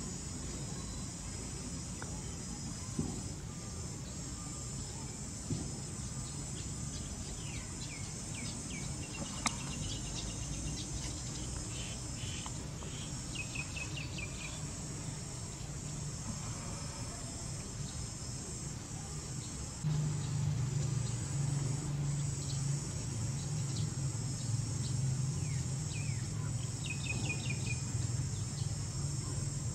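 Steady high-pitched chorus of insects, with a few short runs of quick falling chirps. A low hum underneath grows louder about two-thirds of the way through.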